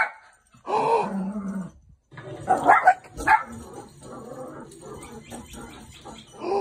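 Small chihuahua-type dog barking in short, sharp bursts. The loudest barks come about two and a half to three and a half seconds in, with a lower, rougher sound between the barks.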